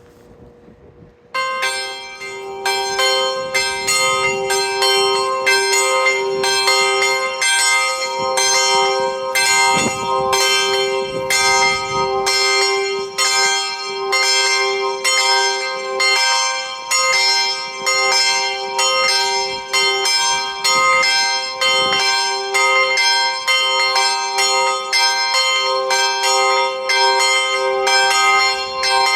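Swing bells of an outdoor karakuri clock ringing, starting suddenly about a second and a half in and continuing as a steady peal of about two strikes a second, several pitches ringing over one another. Only two of the clock's three swing bells are working; the top one is out of order.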